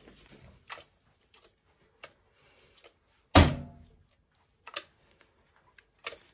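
A single loud thunk about three and a half seconds in, with a short ringing tail, among faint clicks and a couple of smaller knocks.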